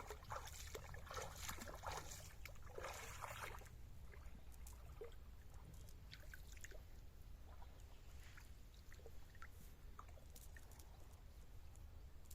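Water sloshing and splashing in a busy run for the first three seconds or so, then only faint scattered drips and ticks over a low steady rumble.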